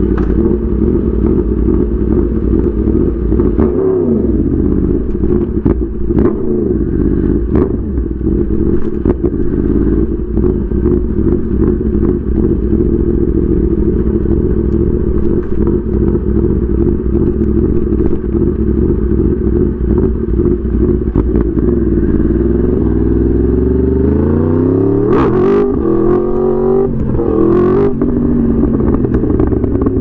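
Yamaha R1's inline-four engine running steadily at low revs, then revved up and let back down twice near the end. Scattered sharp clicks and pops sound over the engine.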